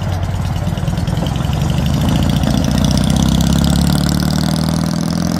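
BMW 700 race car's air-cooled flat-twin engine running, its pitch rising about two seconds in as the car pulls away.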